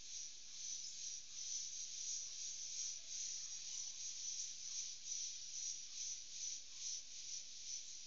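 Dense, shrill chorus of rainforest insects, pulsing a few times a second.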